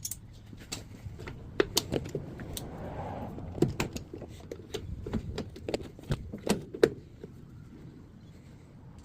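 Metalworking during rifle barrel threading, played at double speed: irregular sharp metallic clicks and taps over a low steady hum, thinning out after about seven seconds.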